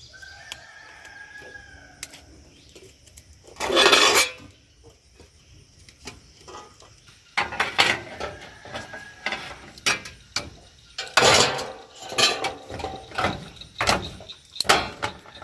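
Tape pulled off a roll in two long tearing rasps, with short clicks and knocks of gazebo frame parts being handled, thickest in the second half.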